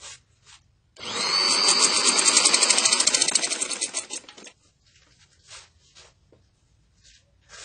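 Sewing machine stitching a seam through cotton fabric, running in a fast, even stitch rhythm with a faint whine. It starts about a second in and stops after about three and a half seconds.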